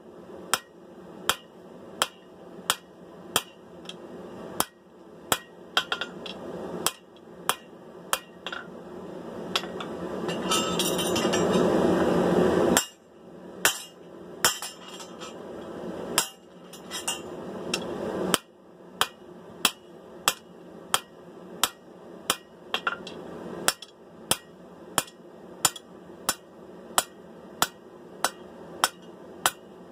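Hand hammer striking hot sword steel on an anvil in a steady rhythm of one to two ringing blows a second. A rising rush of noise builds under the blows and cuts off suddenly about halfway through, then the hammering continues.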